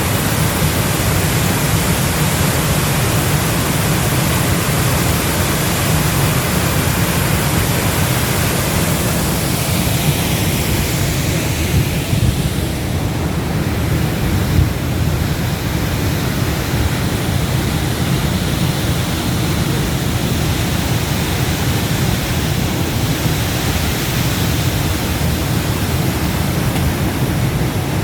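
A 20-metre mountain waterfall rushing steadily, a dense, even noise of falling water that is heaviest in the low end. For a few seconds in the middle it turns slightly duller.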